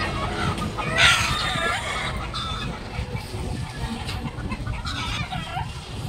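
Chickens clucking, with one loud call about a second in, over a steady low street hum.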